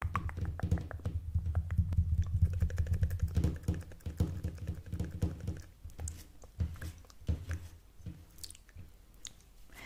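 Close-miked ASMR trigger sounds: a rapid run of small clicks over low, muffled thuds for about the first five seconds, then sparser, softer clicks.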